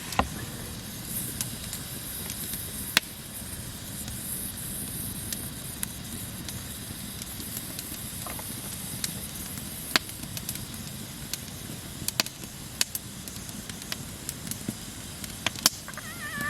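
Steady hiss of water boiling under a steam juicer full of chopped apples, with a few scattered sharp clicks.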